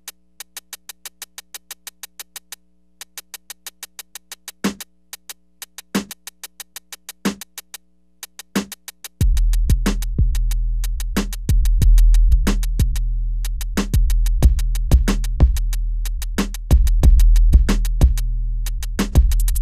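Electronic music intro: a fast, even hi-hat tick with a few single kick-drum hits, then about nine seconds in a loud deep bass comes in with the full beat.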